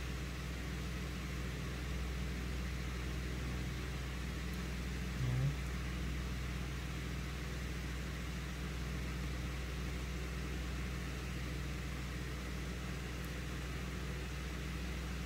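Steady low hum with a faint even hiss, the background noise of a machine running in the room. A brief low sound breaks in about five seconds in.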